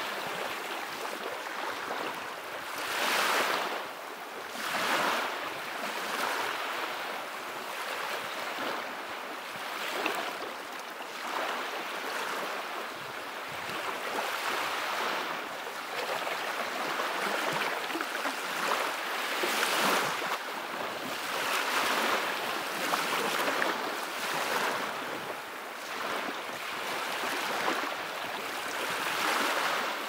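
Small sea waves breaking and washing in at the shoreline: a steady hissing surf that swells and fades every few seconds.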